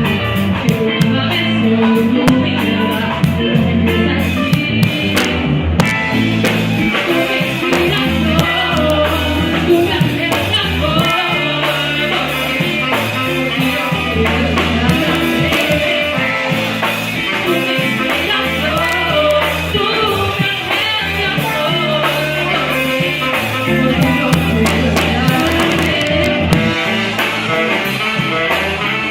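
Rock band playing, with guitar and a singer.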